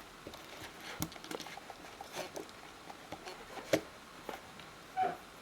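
Scattered light clicks and taps of small tools and phone parts being handled during iPhone reassembly, with a short pitched blip near the end.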